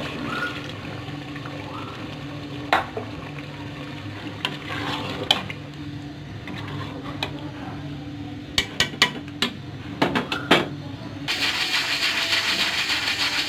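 Water poured into a pot of curry and stirred with a metal spoon, with a few sharp clinks and knocks of metal on the pot. About eleven seconds in, a pressure cooker's weight lets off steam in a loud hiss lasting a couple of seconds: the cooker has come up to pressure and is whistling.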